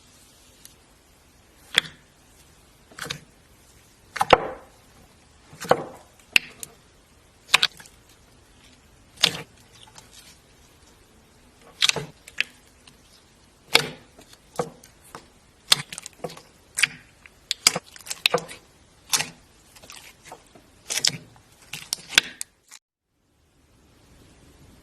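Slime being handled, making sharp pops and clicks about once a second, coming faster in the second half and stopping abruptly near the end.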